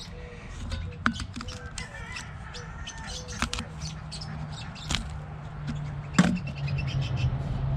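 Scissors clicking and snipping as they are worked into the tough skin of an unripe annona fruit: a series of sharp clicks, two louder ones about five and six seconds in. A steady low hum runs underneath and grows louder in the second half, with faint bird chirps.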